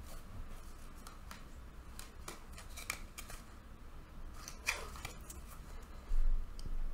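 Light clicks, taps and paper rustles of oracle cards and a paperback guidebook being handled on a table, with a dull thump about six seconds in.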